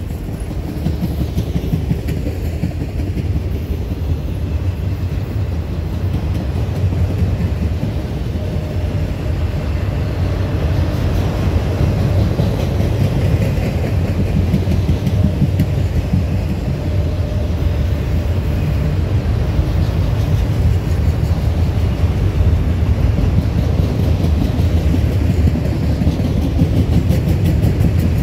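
Freight train of autorack cars rolling past: a continuous low rumble of steel wheels on the rails, slowly growing louder.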